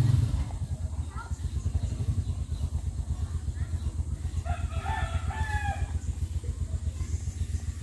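A rooster crows once, about halfway through, over a steady low pulsing engine rumble that runs throughout.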